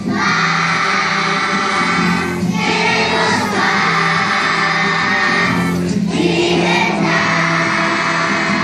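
A large group of children singing together as a choir, in phrases with short breaks about two and a half and six seconds in.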